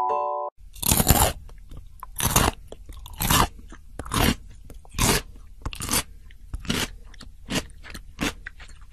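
An animal chewing something crunchy: a loud crunch with each bite, about once a second, nine times over.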